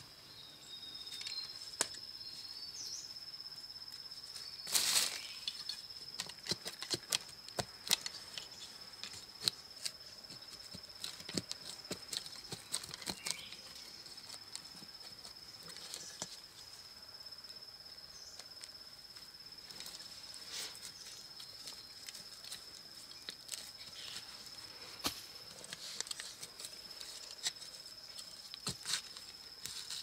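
Irregular scrapes and knocks of a small hand digging tool chopping and prying in root-filled soil, with one louder scrape about five seconds in. Under it runs an insect's steady high-pitched buzz.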